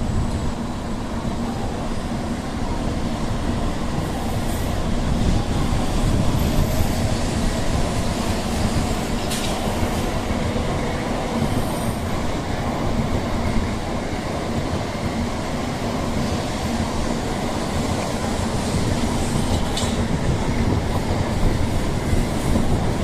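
N700A Shinkansen train pulling out of the platform, its wheels and running gear giving a steady rumble under a constant low hum. Brief high squeaks come about nine seconds in and again near twenty seconds.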